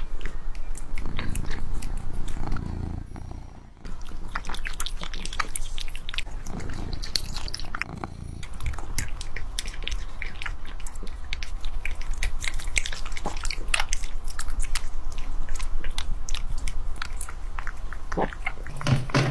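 A cat eating pieces of meat: a run of quick, irregular chewing clicks from its mouth.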